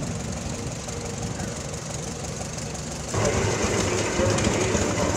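Antique farm tractor engines running as the tractors drive past: first a red Farmall, then, after an abrupt change about three seconds in, a louder Rumely OilPull.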